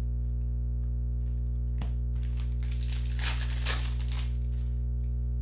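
A trading card pack wrapper torn open and crinkled by hand, with a click a little under two seconds in and the main burst of tearing and crinkling about three seconds in, over steady background music.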